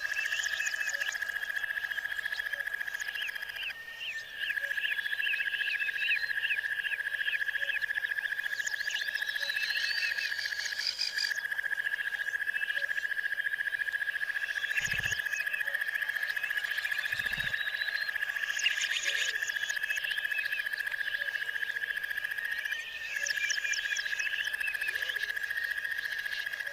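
Outdoor animal chorus: a steady, pulsing high trill that drops out briefly a few times, with quick runs of chirping bird calls over it.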